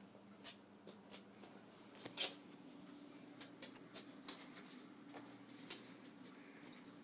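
Faint scattered clicks and rustles from a young Old English Sheepdog playing close up, with one sharper click about two seconds in.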